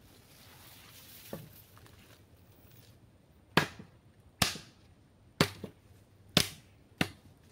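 A blade chopping into wood: five sharp strikes, roughly one a second, in the second half, after faint rustling and a light knock.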